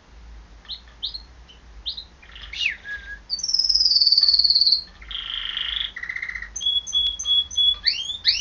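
Domestic canary singing a long, varied song: short rising chirps, a long falling whistle, buzzy trills and rapid runs of repeated notes.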